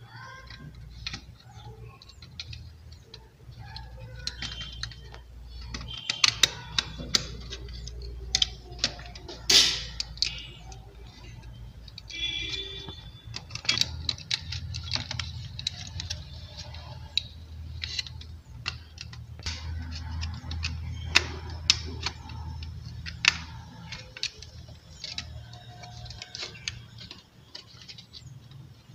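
Small clicks, taps and light rattles from handling a plastic switch-and-socket board as copper and insulated wires are wrapped around its terminals and a screwdriver is worked on them. A steady low hum runs underneath.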